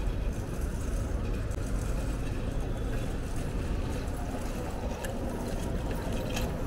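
City street traffic heard from a moving bicycle, with a steady low rumble throughout.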